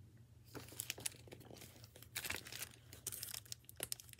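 Rustling and crinkling of a hardcover picture book being handled and turned close to the microphone: a string of irregular crackles starting about half a second in, over a low steady hum.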